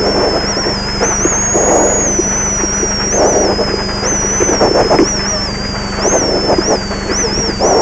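Rally car engine under load on a dirt stage, heard from inside the cabin, as the driver brakes and shifts down through the gears. The engine note flares up several times in the second half, with each downshift.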